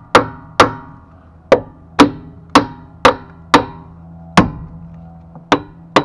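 Hammer blows on the rusted wedge clamps of a Dayton spoke wheel, about ten sharp metallic strikes with a short ring after each, roughly two a second with a longer gap near the end, knocking the pressure-held tapered wedges loose.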